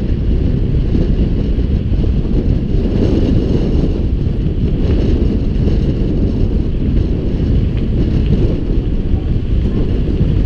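Heavy, steady wind buffeting on a body-mounted action camera's microphone from riding a bicycle at speed along a road.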